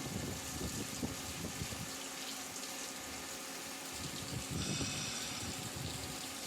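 CNC lathe running a deep boring cut under flood coolant, the coolant gushing and splashing steadily over the work. A cluster of high, thin whining tones comes in for about a second around five seconds in.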